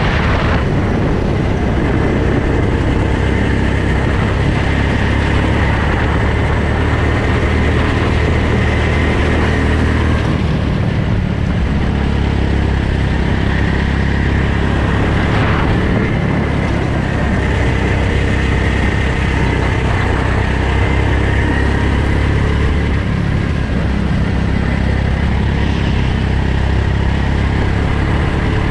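A go-kart engine running continuously under a driver on track, its note rising and falling with the throttle through the laps, heard from the driver's helmet.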